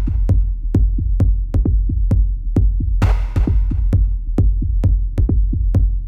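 Electronic background music with a steady drum-machine beat and a heavy bass line, with a hissy swell about three seconds in.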